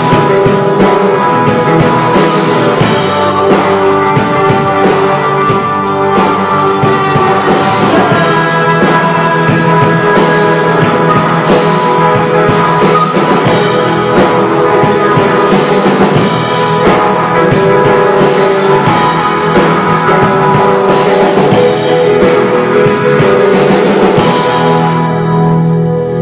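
Live rock band playing loud: electric guitars, keyboard and drum kit together. The band stops about a second before the end, leaving a held low note ringing.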